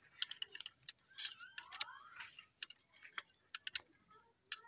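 Irregular sharp metal clicks and ticks as a wrench turns a threaded bush puller on a motorcycle swingarm pivot, drawing out the swingarm bush. A steady high-pitched hiss sits underneath.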